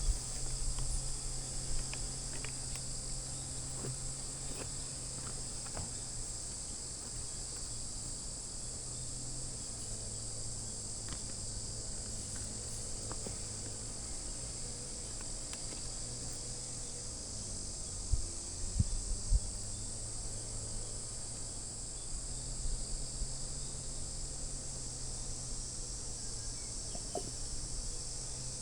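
Steady high-pitched chorus of insects, with a faint low hum under it and a few dull knocks about two-thirds of the way in.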